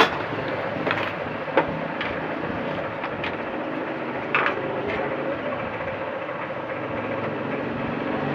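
Scattered sharp clicks and knocks of hands and tools on the plastic back cover of an LED TV being opened, over a steady background noise.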